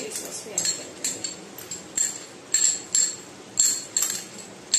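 A metal spoon clinking against a small cup as mixed sauce is scraped and tapped out of it into the wok: a run of sharp clinks, irregular, roughly two a second.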